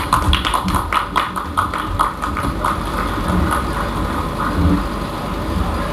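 Hands clapping: a quick, even run of sharp claps for about three seconds, then thinning out, over a steady background hum of the crowd.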